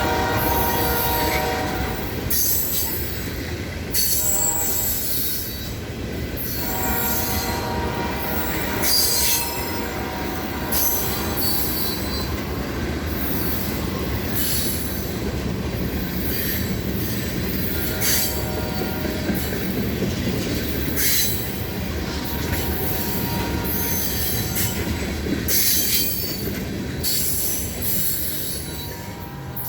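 Ohio Central Railroad train rolling past with steady rumbling, its wheels squealing and clicking against the rails. Sustained, level tones come and go several times.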